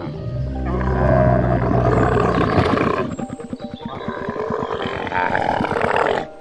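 A large animal's deep, loud roar lasting about three seconds, followed by a rapid pulsing growl that cuts off near the end, over background music.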